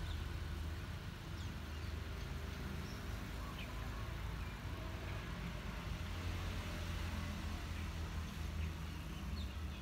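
Steady low rumble, like an engine or traffic in the background, with a few faint, short high chirps scattered through it.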